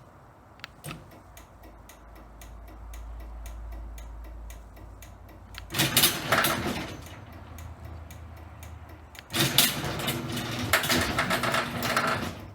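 Old Access Master chain-drive garage door opener running, its motor humming under a rapid, even clicking. Twice, loud clattering bursts come from the mechanism, the sound of an opener with a broken chain that no longer works properly.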